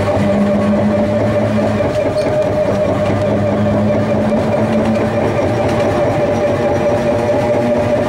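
Vintage Porto heritage tram, with largely original trucks and electrical equipment, running along street track, heard from inside the car: a loud, steady hum with several held tones over the rumble of the wheels on the rails.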